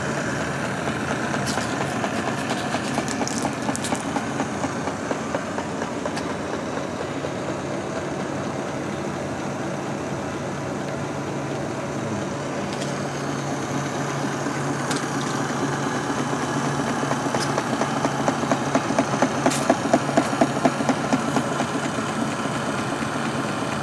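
Model steam beam engine running: a steady, fast mechanical clatter from its brass works, with a few sharp clicks, and a louder, regular pulsing between about 18 and 21 seconds in.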